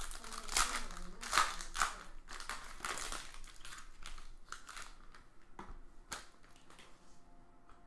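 Foil trading-card pack wrapper crinkling and rustling as it is opened and handled. The bursts are densest in the first three seconds, a few sharp clicks come around the middle, and it goes quieter near the end.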